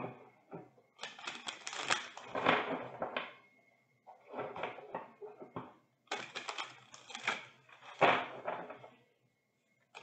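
A deck of oracle cards shuffled by hand: three bursts of rapid flicking and slapping of cards, each lasting two to three seconds.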